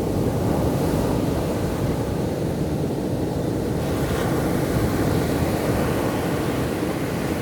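Ocean surf breaking and washing up the beach: a steady, unbroken rush of waves.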